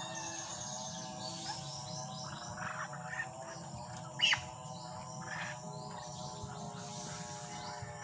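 Birds chirping over a steady bed of sustained, wavering tones, with one loud, sharp chirp sweeping downward in pitch about halfway through.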